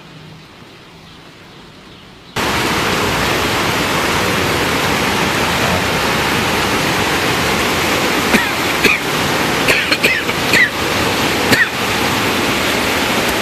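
Rain falling softly, then an abrupt cut about two seconds in to a loud, steady rush of water from torrential rain and flooded streets. A few brief, sharper high sounds rise over the rush later on.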